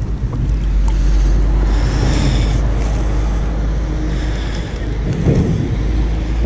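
Steady low rumble of wind buffeting the camera's microphone, with a brief bump of handling about five seconds in.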